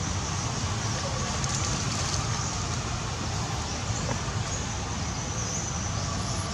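Steady rumbling background noise with no single clear source, with faint high chirps now and then.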